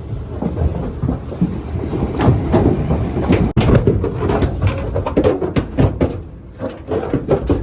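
Cattle walking out of a stock trailer: irregular hoof knocks and clatter on the trailer floor over a low rumble.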